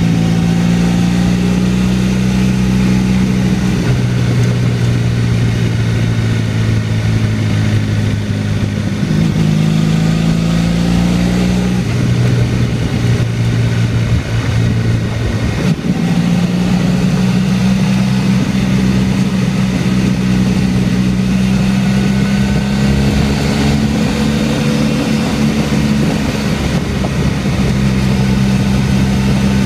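Motorcycle engine running at a steady cruise of about 4,000 rpm, its pitch shifting a little a few times, over a steady rush of noise.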